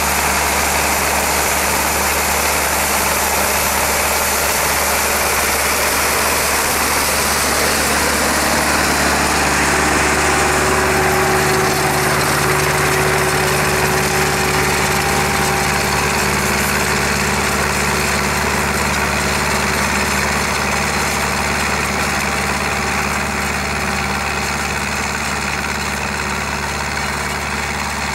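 Tractor diesel engine running steadily under load while it pulls a plough through the soil.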